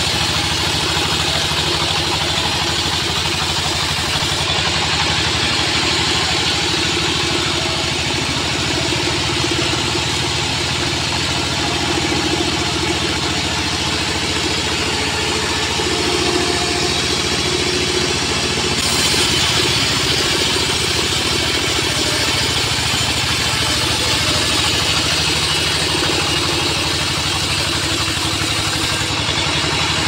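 Homemade sawmill bandsaw running steadily as its blade rips a log of weru wood into slabs, a continuous mechanical drone with cutting noise.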